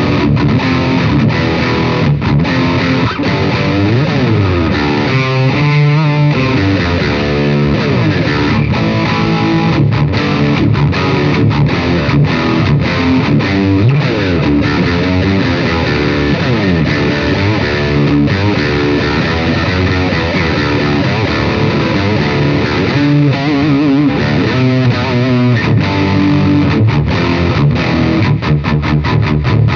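Electric guitar through a Caline Jaguar Classic High Gain Distortion pedal, played in continuous high-gain distorted riffs with sliding notes. The pedal's mid control is turned fully down, giving a scooped, mid-cut tone.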